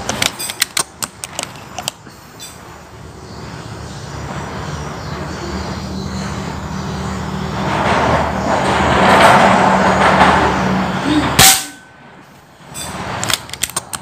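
A motor vehicle's engine passes close by, building to its loudest about nine seconds in. A single sharp crack of a PCP air rifle shot comes about eleven and a half seconds in, and the sound then drops away abruptly. A few quick sharp clicks are heard near the start.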